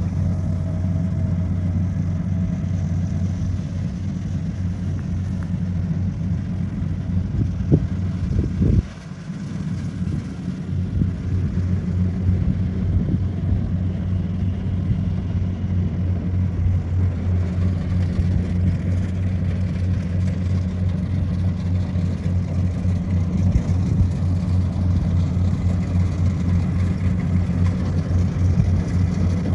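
Compact rice combine harvester's diesel engine and threshing machinery running with a steady low drone. About nine seconds in, after a couple of sharp knocks, the sound drops away abruptly, then builds back up over the next two seconds.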